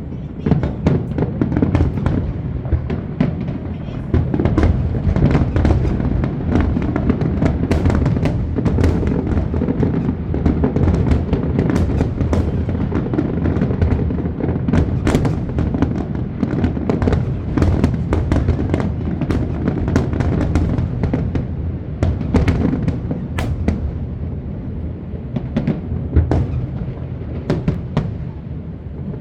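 Aerial fireworks bursting in rapid succession: many sharp bangs and crackles over a continuous low rumble.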